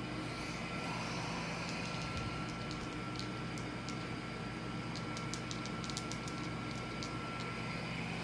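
Steady background hum of the room, with a run of faint, light clicks scattered through the middle.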